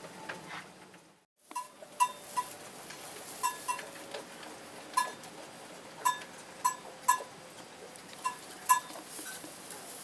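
Short, sharp squeaky clicks from animals in a mini-pig pen, about a dozen at uneven intervals, over a faint steady hiss. The sound drops out briefly about a second in.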